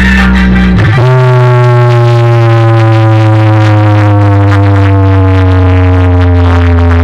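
Very loud DJ music from a road-show loudspeaker rig. About a second in, a long synth tone with many overtones begins and slides slowly down in pitch over a steady deep bass.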